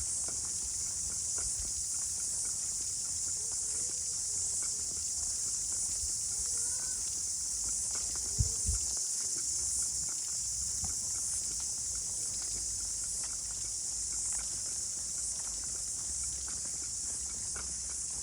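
A steady high-pitched chorus of insects, with a single thump about eight seconds in.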